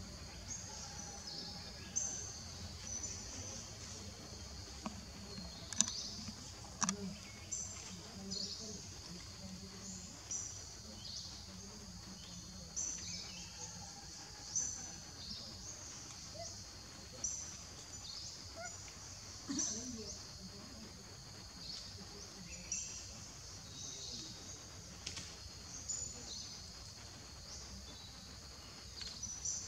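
Forest ambience: a steady high-pitched drone with short high chirps every second or two, and a few sharp clicks.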